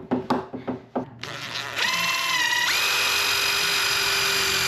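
A few sharp knocks, then a power drill spinning up and running steadily, its whine stepping up in pitch twice as the trigger is squeezed harder, as when driving into wood framing.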